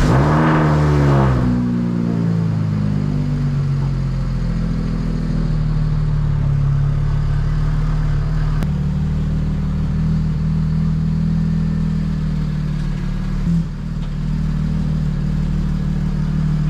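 BMW 335i's N54 twin-turbo inline-six starting: it flares up and drops back to a steady idle within about two seconds, then idles on, with a slight change in its tone about halfway through.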